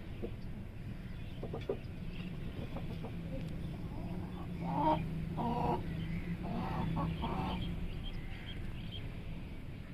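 Chicken clucking: four short calls in quick succession about halfway through, over a steady low hum.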